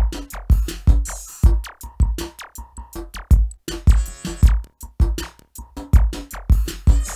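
Electronic music from an M-Audio Venom synthesizer: a drum-machine beat with a deep kick about once a second and busy clicking percussion between, over a thin held synth tone.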